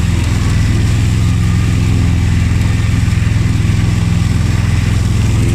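Honda HF2622 ride-on lawn tractor's V-twin engine running steadily at an even speed.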